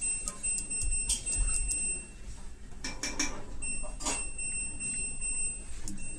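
Two long, high-pitched electronic beeps, each lasting about two seconds, with sharp clicks and knocks around them.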